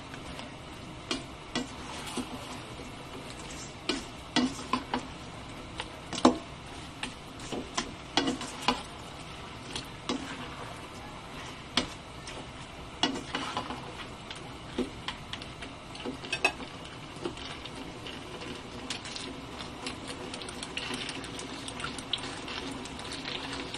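A spatula knocking and scraping irregularly against a nonstick wok as fried chicken wings are tossed in sauce, over a steady sizzle.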